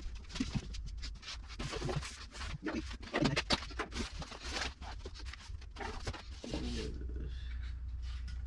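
Packaging being handled while unboxing: cardboard and foam packing scraping and rustling in quick irregular bursts, stopping about seven seconds in.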